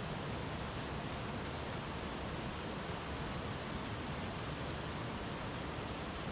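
Brook water running and bubbling, a steady even rush with no breaks.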